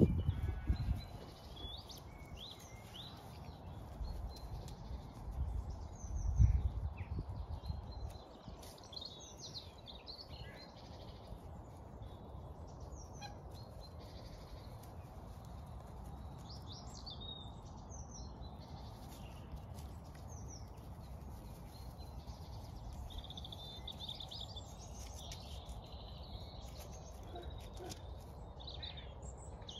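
Wild birds singing and chirping, short high calls scattered throughout over steady low background noise, with a brief louder low noise about six seconds in.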